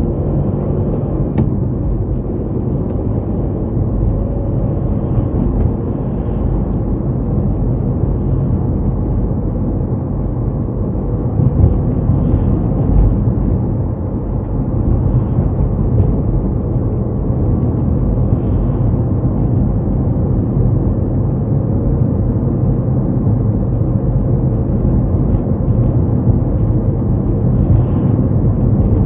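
A car driving along a road: a steady low engine drone with tyre and road rumble underneath.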